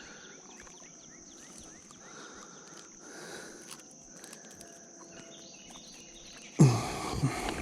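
Outdoor riverside ambience: a steady high insect drone with short bird chirps, then a sudden loud rush of noise about six and a half seconds in.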